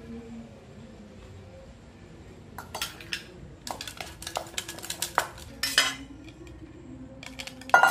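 A metal spoon scraping and clinking against stainless steel bowls as ingredients are scraped from a small steel bowl into a larger one. After a quiet start there is a quick run of clinks through the middle, with the loudest clink at the very end.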